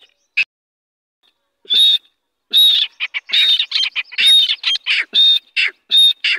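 Grey francolin (teetar) chicks calling in short, high chirps. A single chirp comes near the start and another about two seconds in. Then comes a quick run of several chirps a second through the second half.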